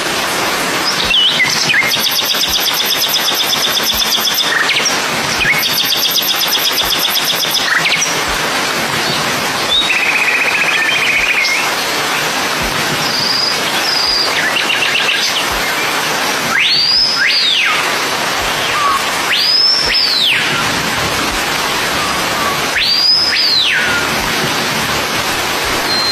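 Birds chirping over a steady hiss of rain: fast trilled chirps in the first third, then three separate high calls that rise and fall in pitch in the second half.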